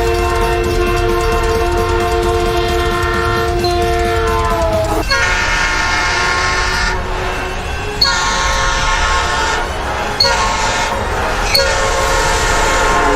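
Locomotive multi-chime air horn sounding a long chord whose pitch slides down about five seconds in as the train passes, then a string of shorter blasts with brief gaps, over the rumble of the passing train.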